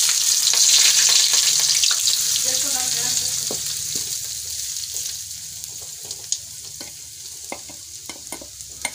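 Chopped red onions hitting hot oil in a kadhai: a loud sizzle at first that dies down over several seconds of frying. A spoon clicks against the pan now and then as the onions are stirred.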